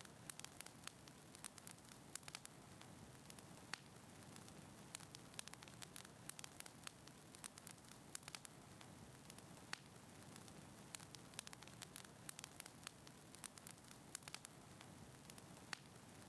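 Fireplace fire crackling quietly: irregular sharp pops and snaps over a soft steady hiss and low rumble.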